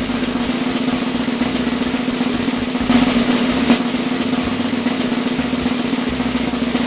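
Snare drum roll: a steady, sustained roll with a couple of louder accents about halfway through.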